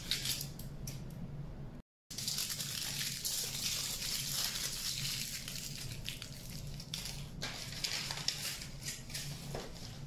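Aluminium foil crinkling as it is crumpled and squeezed into balls by hand, broken by a brief total gap about two seconds in.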